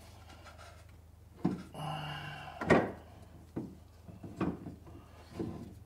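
Heavy electric golf cart motor being worked into place against the axle housing: five or so dull metal knocks and clunks about a second apart, the loudest just before halfway, preceded by a short scrape.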